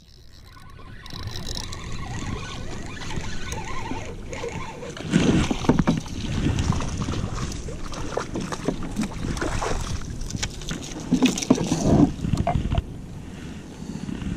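Water sloshing and splashing around a kayak hull, with wind buffeting the microphone and irregular knocks and rustles from handling a landing net and a fish. Louder splashy bursts come about five and eleven seconds in.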